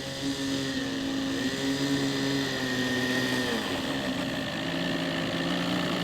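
Ben Buckle Super 60 radio-controlled model aeroplane in flight, its motor and propeller giving a steady drone whose pitch drifts as it flies, shifting about halfway through.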